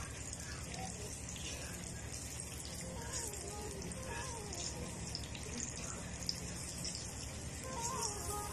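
Steady hissing and crackling of food cooking on a stove, even throughout.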